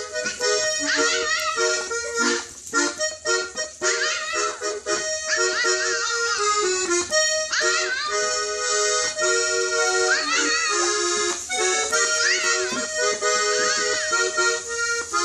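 Accordion playing a tune while a husky puppy howls along over it, its howls rising and falling in pitch again and again above the held notes.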